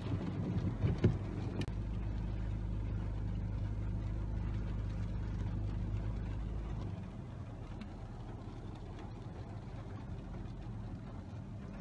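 Car engine and road noise heard from inside the cabin: a steady low drone that drops to a quieter level about seven seconds in, with a couple of short knocks near the start.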